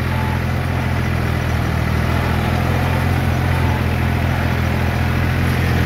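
Diesel tractor engine running steadily under load as it pulls a rotavator through the soil to break up clods. A steady low drone from the driver's seat, with the rotavator churning the soil beneath it.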